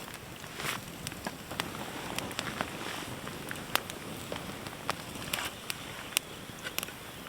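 Small kindling campfire crackling with irregular sharp pops, over a steady hiss of rain.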